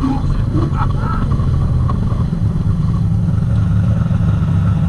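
An outboard drag boat's engine running steadily, heard from on board.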